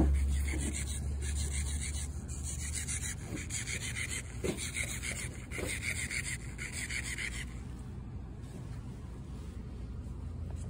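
Rubbing and scraping close to the microphone, with a low rumble over the first few seconds. The scratchy noise stops about seven seconds in.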